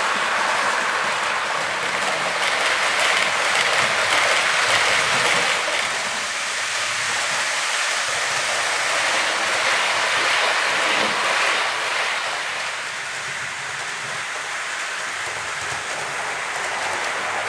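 Model trains running on a layout: a steady rushing noise of wheels rolling on the track and the locomotive motors, easing a little after about twelve seconds.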